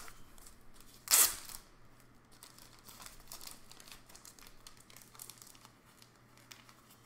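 Clear plastic card sleeves and wrappers crinkling as trading cards are handled, with one loud crackle about a second in, then faint rustles and clicks.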